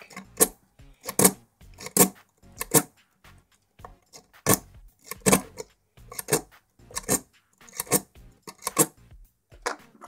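A W-shaped rake pick scraping in and out of the keyway of a brass euro-profile lock cylinder held under light tension: a steady rhythm of sharp metallic scraping clicks, about one stroke every three-quarters of a second, as the rake is worked across the pins.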